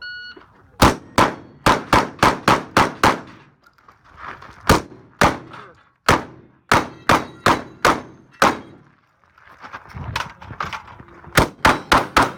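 A shot timer beeps once, then a shotgun fires in quick runs of several shots each, a few tenths of a second apart, with short pauses between the runs. Roughly twenty shots in all, at steel targets.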